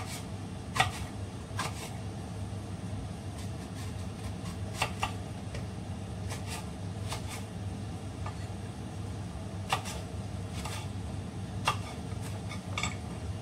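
A heavy kitchen knife cutting eggplant into large chunks, the blade knocking on the cutting board in irregular strokes about a second apart, over a steady low hum.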